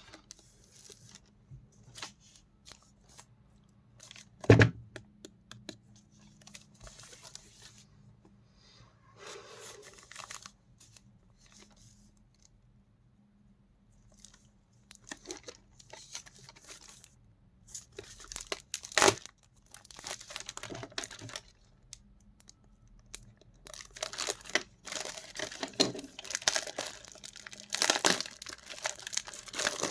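Plastic packaging of a pen set crinkling and tearing as it is opened and handled, with scattered clicks and a sharp knock. The crinkling is busiest in the second half.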